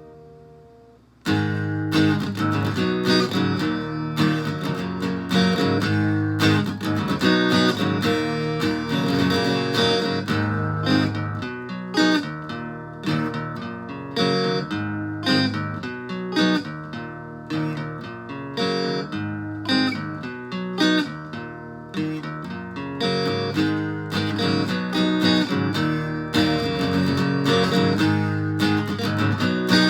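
Amplified steel-string acoustic guitar, an 80s Lotus L-80 with a Bartolini 3AV soundhole pickup, played through a BOSS DS-1 pedal and amp in a low half-step-down tuning. A chord rings out, then about a second in rhythmic strummed chords start and carry on.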